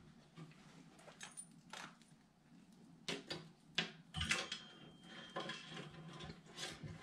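Light clicks, taps and rattles of hands handling a flight-simulator collective and its control cables, with a few sharper knocks about three to four seconds in.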